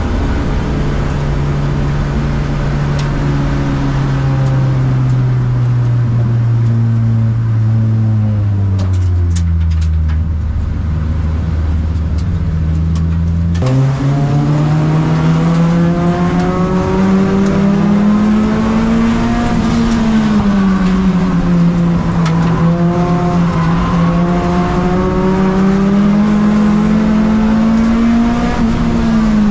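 A tuner race car's four-cylinder engine at low revs, heard from inside the cabin while it runs slowly under a caution flag. The note sinks slowly for the first half, jumps up suddenly about 14 seconds in, then rises and falls gently with the throttle.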